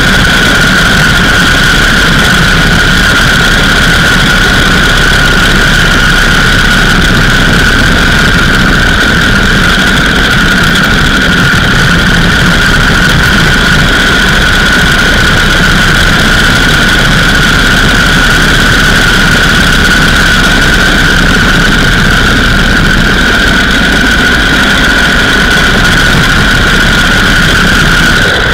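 Indian 101 Scout motorcycle's V-twin side-valve engine running steadily under way, loud and unvarying, with a steady high whine over the engine noise.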